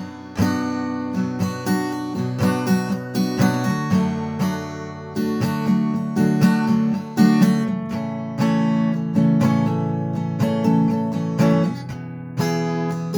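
Acoustic guitar in drop tuning, capoed on the third fret, playing the song's Am–C–G–D chord progression as an intro with repeated chord strokes, and a brief pause near the end.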